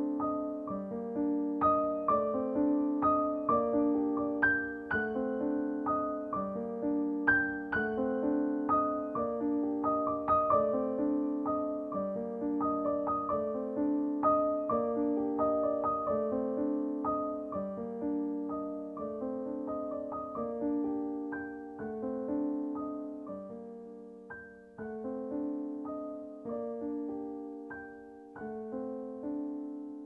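Gentle background piano music: a slow, even run of notes with chords, gradually getting quieter through the second half.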